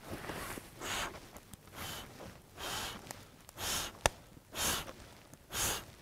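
Short puffs of breath blown through cupped hands, repeated about once a second, with one sharp click about four seconds in.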